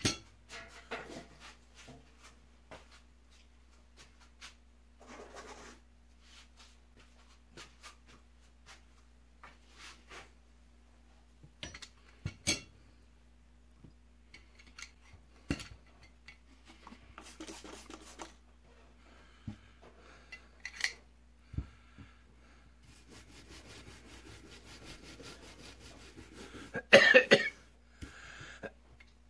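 Metal hand tools being handled and worked on a bench: scattered light clicks and clinks with stretches of rubbing and scraping, a longer scratchy stretch late on, then a loud cough near the end, which comes from the ammonia fumes of the spray cleaner.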